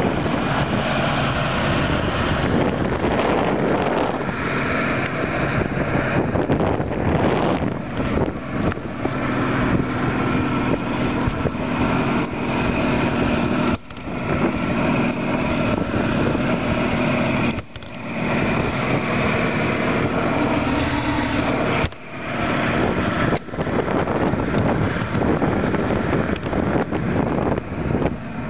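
Mercury 115 hp outboard motor running steadily, with a few brief drops in loudness about halfway through.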